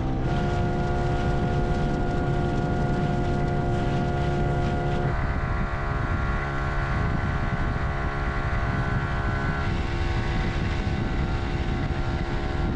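Boat's outboard motor running steadily under way, its pitch dropping a little about five seconds in, with wind buffeting the microphone.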